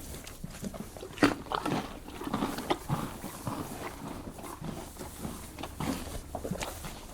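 Horse biting and chewing a carrot, a run of irregular crunches with one sharp loud bite about a second in.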